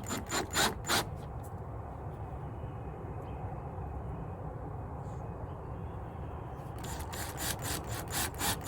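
Short rasping strokes of hand-tool work on the lock bracket: about four near the start, then a quicker run of strokes near the end.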